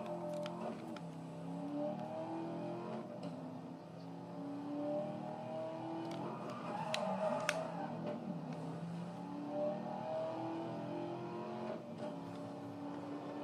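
Vehicle engine revving up, its pitch climbing for a second or two, dropping back and climbing again several times. A couple of sharp clicks come about seven seconds in.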